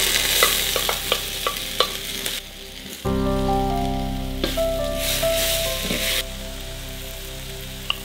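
Sliced bell peppers and shredded carrot sizzling as they hit hot oil in a metal wok, with a spatula clicking and scraping against the pan as the vegetables are pushed in and stirred. The sizzling comes in two spells, the first dying down about two and a half seconds in and the second starting about four seconds in and fading about two seconds later.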